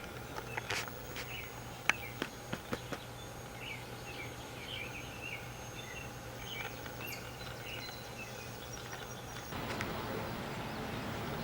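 A small bird chirping in a quick, repeated series over a steady low hum and a thin high whine. There are a few sharp clicks about two seconds in, and a broad rushing noise comes up near the end.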